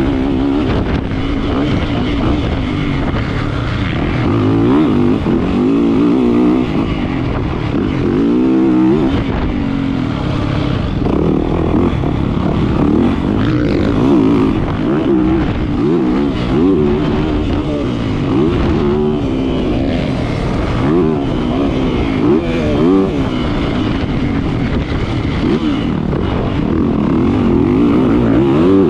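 Yamaha 450 motocross bike's four-stroke single-cylinder engine, heard from on the bike, revving up and falling off again and again as the rider accelerates, shifts and brakes around the dirt track.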